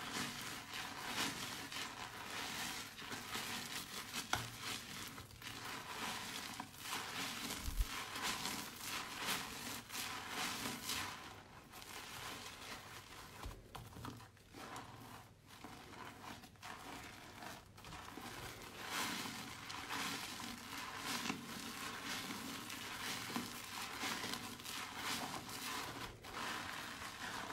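Soaked, mushy bar soap being squished and pushed around, giving a continuous wet crackling and squelching. The sound thins out for a few seconds in the middle, then fills in again.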